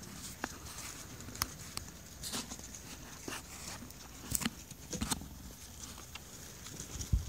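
Bison hooves clicking on asphalt as the animals walk along the road, irregular sharp clicks a second or so apart, over a steady low rumble.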